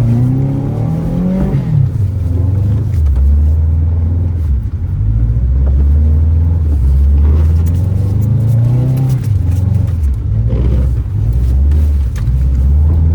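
Subaru WRX's turbocharged flat-four engine revving up and falling back several times over a steady low rumble.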